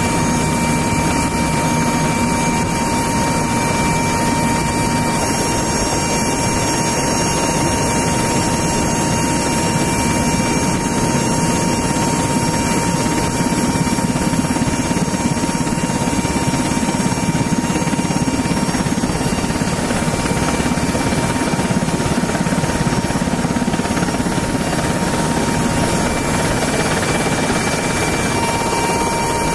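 Steady roar of aircraft engines and rushing air in flight, as heard aboard an MC-130J Commando II turboprop tanker, with a steady high-pitched whine over it. The sound holds even with no change.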